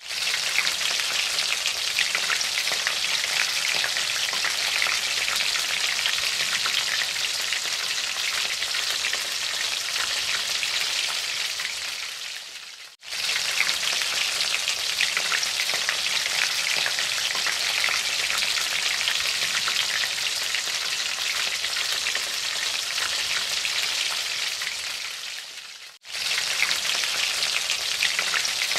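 Butter and oil sizzling in a hot nonstick wok, then marinated blue marlin steaks frying in the butter with a steady crackling sizzle. The sizzle fades out and comes back twice, about halfway through and near the end.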